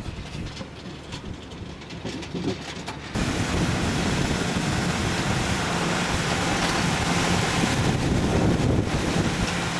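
Compact tractor's engine running and a PTO-driven soil conditioner's toothed rotor churning soil and stones as it travels across a field. About three seconds in the sound steps up suddenly to a loud, steady rush with a low hum, as the working rotor is heard close by.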